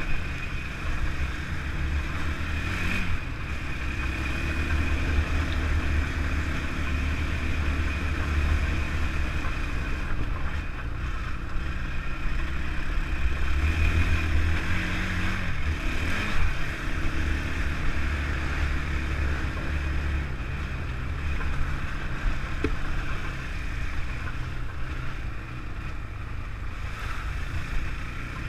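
Honda TRX450R sport quad's single-cylinder four-stroke engine running as the quad rides along a dirt trail, its pitch shifting a little with the throttle.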